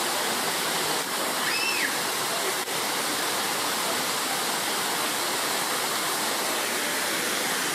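Small waterfall cascading down a rocky slope into a pond: a steady rush of falling water.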